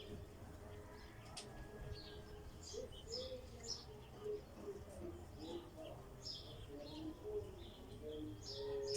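Birds chirping: many short, high chirps scattered throughout, faint, with softer lower wavering calls beneath.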